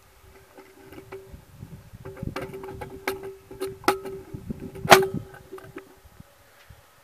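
Sharp clicks and knocks of the camera being handled, several in the middle of the clip with the loudest about five seconds in, over a steady hum.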